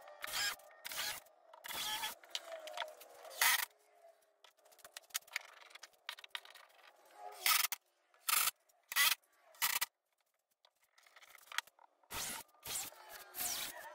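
A string of short scrapes and knocks, separated by pauses, as tools and clamps are handled on a plywood worktop.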